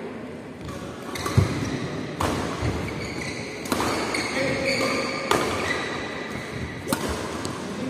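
Badminton rally in an echoing hall: about five sharp racket strikes on the shuttlecock, a second or so apart, with short squeaks of court shoes on the floor between them.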